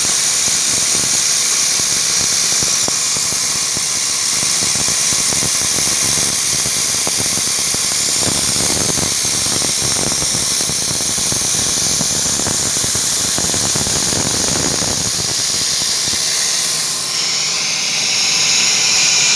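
Romi Interact CNC milling machine cutting a thrust-bearing ball separator: a continuous high-pitched whine with hiss and rough cutting noise, changing in tone near the end.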